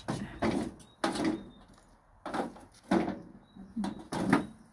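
A door being worked open: an irregular series of about seven knocks, each with a short scraping rattle.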